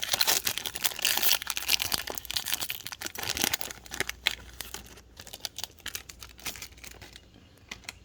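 A trading-card pack wrapper being torn open and crinkled, a dense crackling that thins to a few scattered crackles in the second half.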